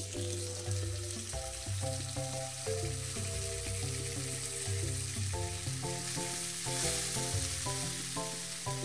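Diced red onion and sauerkraut frying in oil in a pan: a steady sizzle that starts abruptly as the onion goes into the hot oil, over background music.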